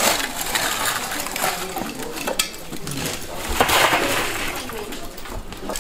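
Red-hot charcoal being raked out of a kiln with an iron rake: chunks clinking, cracking and tumbling over one another with metal scraping, swelling to a louder rush of clinking about two-thirds of the way through.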